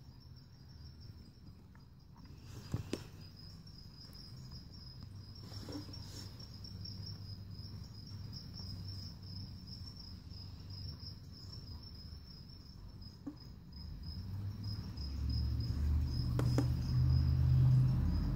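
A cricket chirping in a steady, high, pulsing trill, with a few faint knocks. A low rumble swells over the last few seconds and becomes louder than the trill.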